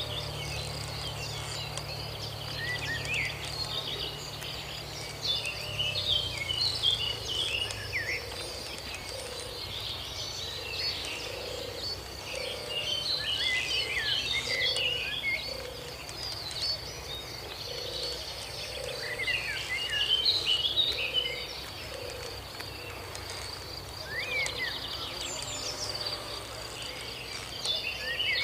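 Outdoor ambience: a steady high insect trill with bouts of bird chirping every few seconds. A low hum fades out in the first several seconds.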